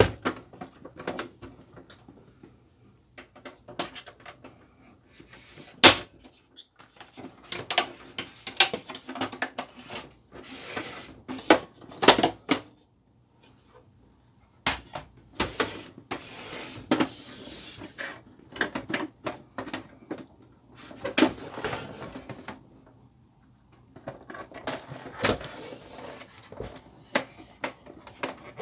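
Plastic casing of a laser printer being handled and turned over on a table: irregular clicks, knocks and scrapes of hard plastic, with a few sharper knocks now and then.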